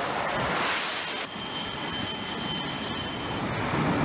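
Jet fighter engines running at high power on a carrier flight deck: a loud, steady rushing noise with a high whine through the middle stretch. The sound changes abruptly about a second in and again near the end.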